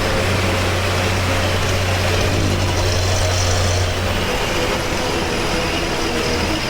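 Hino bus diesel engine running at speed, a steady low drone with a noisy rush over it; the low drone eases off about four seconds in.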